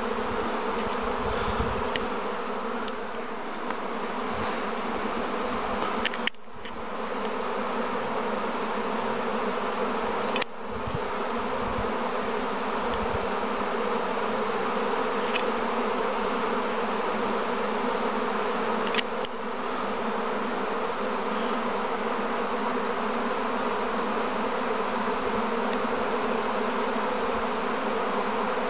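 A huge honeybee swarm in flight, a dense steady hum of thousands of bees as the swarm moves into bait hives. The hum briefly drops away twice in the first half.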